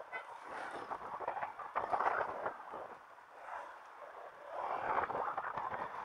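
Riding noise picked up by a bike-mounted action camera: an uneven, muffled clatter and rumble from the moving bike. It swells about two seconds in and again near the end.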